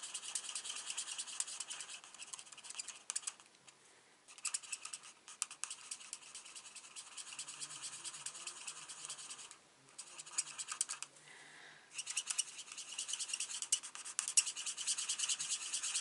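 Felt-tip nib of a Stampin' Blends alcohol marker scratching over cardstock in quick, short back-and-forth strokes while blending colour into a flower. It stops briefly about four seconds in and again around ten to twelve seconds. The nib is worn.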